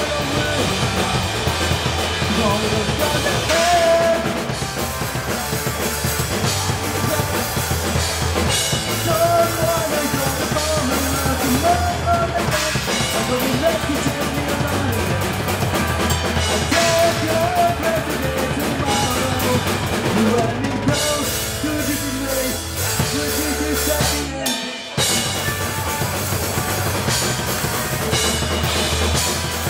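Live rock band playing: drum kit with bass drum and snare keeping a steady beat under amplified electric guitar and bass guitar. The band cuts out for a moment about 25 seconds in, then comes straight back in.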